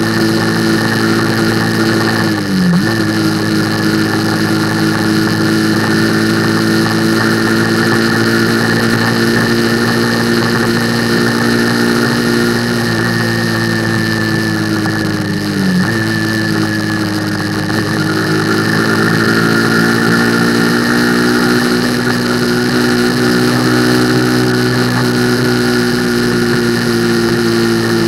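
Motorcycle engine running at a steady cruise, with wind and road rush. The engine note dips sharply and picks up again twice, about 3 s in and about 16 s in.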